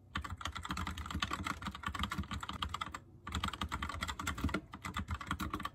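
Fast typing on a computer keyboard: a steady stream of key clicks with a short pause about three seconds in.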